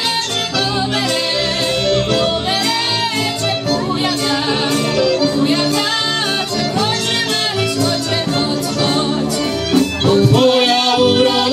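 Polish folk band playing live: accordion, violins and double bass with a drum, and women singing the melody into microphones. The music gets a little louder near the end.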